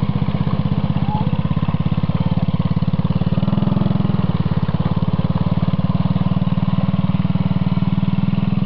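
The single-cylinder engine of a 90cc mini ATV running steadily as the quad is ridden along, a rapid even chug of firing pulses with no revving.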